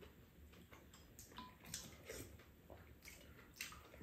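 Faint eating sounds: soft wet mouth sounds with a few light clicks of a spoon and chopsticks against ceramic bowls.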